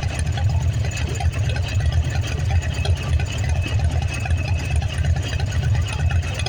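An engine running steadily at a low, even idle-like pulse, with a faint steady whine above it.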